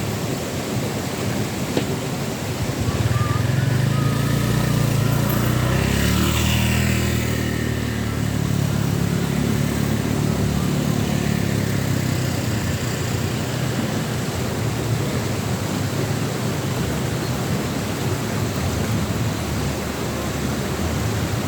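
A motor vehicle's engine passes by, growing louder for a few seconds and then fading away, over a steady background hiss.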